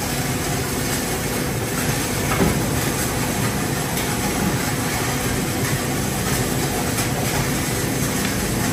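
Injection moulding machine running in a plastics factory: a steady mechanical drone and hiss, with a few faint ticks.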